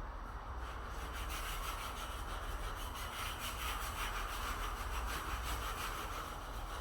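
A hand tool working wood with a fast rhythmic scraping, a quick run of strokes that starts about half a second in and stops near the end, over a low steady hum.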